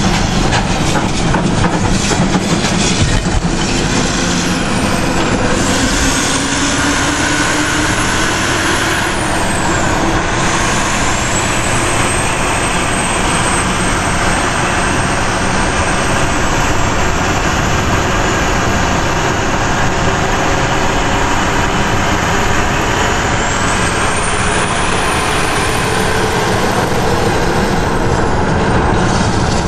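Detroit Diesel Series 60 inline-six diesel truck engine running, its turbocharger giving a high whistle that rises, holds and falls away three times as the engine speed changes.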